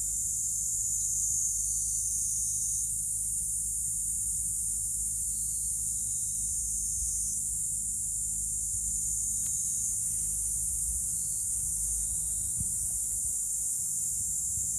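Domestic cat purring steadily while its head is stroked, a low continuous rumble, over a steady high hiss.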